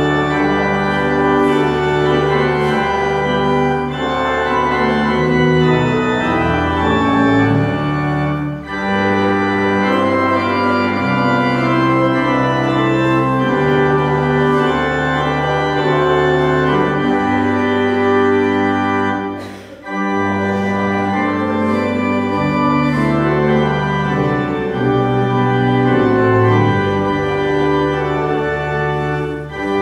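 Church organ playing a hymn in sustained, changing chords, with short breaks between phrases about nine and twenty seconds in.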